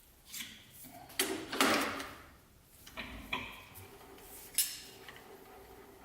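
Metal tools and parts being handled and set down: about half a dozen separate clinks and clunks with a short metallic ring, the loudest a little over a second in and one sharp one near the end.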